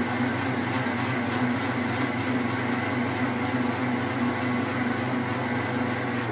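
Electric kitchen mixer grinder running steadily, a motor whine over a low hum, cutting off at the very end.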